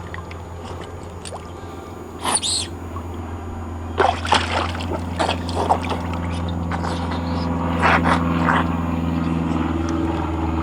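Scattered splashes and knocks from a dog playing with a ball in a shallow kiddy pool. Under them a motor vehicle engine runs and grows steadily louder from about halfway through.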